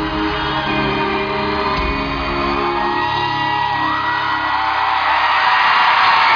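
Live band music echoing in a large arena as a song comes to its end, with an audience whooping and screaming. About five seconds in, the band's low notes die away and the crowd's cheering rises and takes over.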